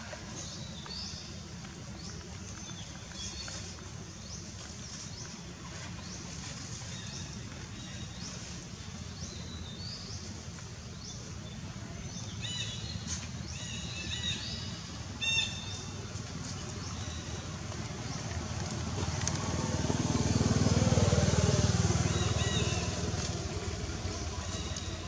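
Outdoor forest ambience: short high chirping calls come and go over a low steady rumble, and about twenty seconds in a motor vehicle swells louder and then fades.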